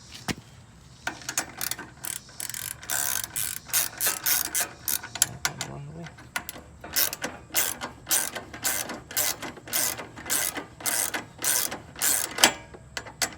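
Hand ratchet wrench clicking in repeated back-and-forth strokes, about two a second, as 14 mm bolts are tightened during a motorcycle rear-wheel reinstallation.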